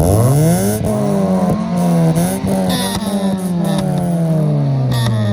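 Toyota Corolla's engine revving through an aftermarket HKS exhaust. The pitch climbs sharply at the start, then rises and falls several times.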